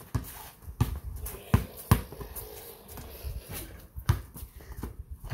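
Basketball being dribbled on a concrete driveway: a series of sharp bounces at uneven spacing, with sneakers scuffing between them.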